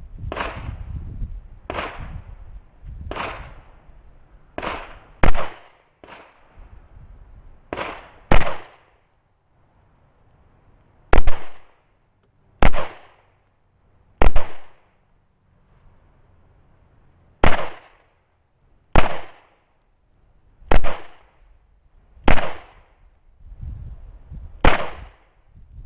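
A Glock 19 Gen 2 pistol firing 9mm Luger rounds (Winchester 115 gr FMJ), about fifteen single shots one to three seconds apart, with a pair fired close together now and then. Each shot is a sharp crack with a short echo.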